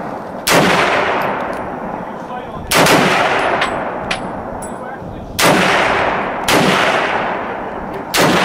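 M1 Garand semi-automatic rifle fired five times, one shot per trigger pull, at uneven gaps of one to nearly three seconds. Each shot is a sharp crack followed by a long echoing tail.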